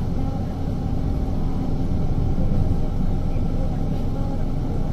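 Steady low rumble of a vehicle driving, its engine and road noise heard from inside the cabin.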